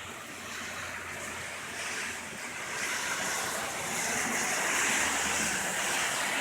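Heavy rain falling, an even rushing hiss that swells louder from about two seconds in and eases slightly near the end.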